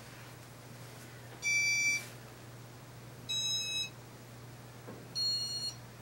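Three electronic beeps from a Casablanca ceiling fan's control, each about half a second long and each at a different pitch, as the fan is commanded to start turning.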